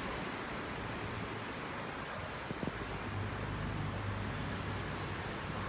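Steady background rumble and hiss with no speech, and a low hum that grows stronger about halfway through.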